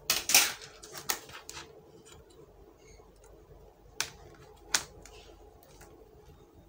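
Plastic clicks and knocks from handling the opened bottom case of an HP 240 G6 laptop: a quick cluster at the start, a few more about a second in, and two single sharp clicks about four and four and three-quarter seconds in.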